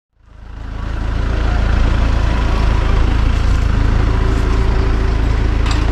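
An engine running steadily at low revs. It fades in over the first second and has a regular low pulsing, with one short clank near the end.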